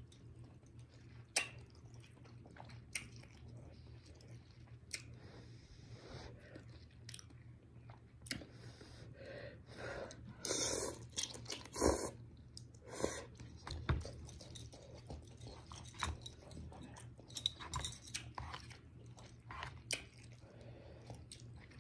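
A person chewing instant noodles close to the microphone, with many short wet mouth clicks, and slurping a long forkful of noodles in about ten seconds in, the loudest part.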